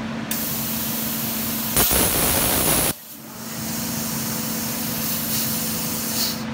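Plasma cutting system (Kjellberg SmartFocus 200) running between cuts, with the torch not lit: a steady machine hum with a hiss of gas. About two seconds in comes a louder rushing burst of about a second, which cuts off suddenly.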